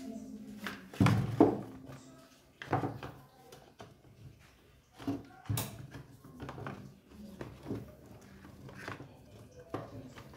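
Plastic housing and handlebar of a Stihl MS 210 chainsaw knocking and clattering against the engine body as they are worked into place during assembly: a string of irregular knocks and clunks, the loudest about a second in.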